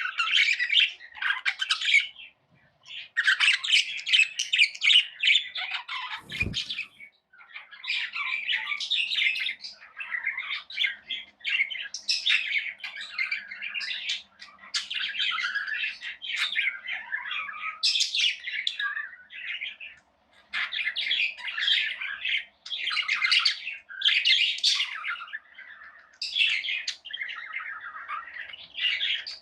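A flock of small pet parrots chirping, chattering and squawking almost without pause, in overlapping bursts with a few short lulls.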